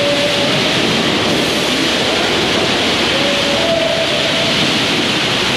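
High-pressure water spraying from pressure-washer wands onto a truck's open engine bay and bodywork: a loud, steady rushing hiss.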